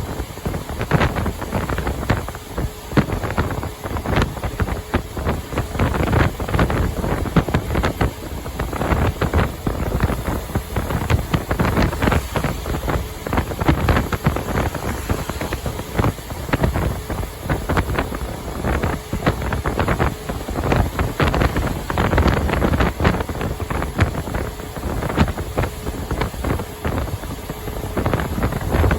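Wind buffeting the microphone, gusting unevenly, over the road and engine noise of a truck at highway speed.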